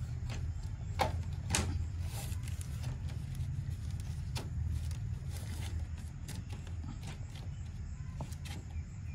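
Light clicks and rubbing as a thin camera wire is pressed by hand into the gap under a bus window's beading, two sharper clicks about a second in, over a steady low rumble.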